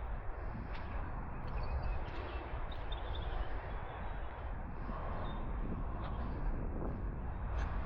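Open-air background noise: a steady low rumble with faint bird chirps.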